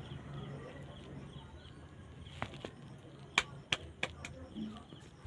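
A run of sharp cracks and pops from a head-and-neck cracking massage, about six short ones spread over the last three seconds, the loudest around three and a half seconds in.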